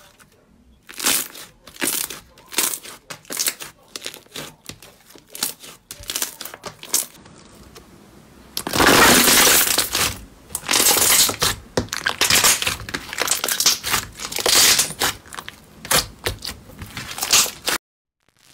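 Slime being squeezed and pressed by hand, giving runs of sharp pops and crackles. The crackling is densest about nine seconds in and cuts off suddenly near the end.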